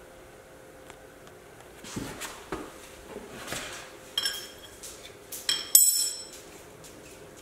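Small metal air-line fittings being handled, with rustling and clinks; the two loudest are sharp, ringing metal clinks about four and six seconds in.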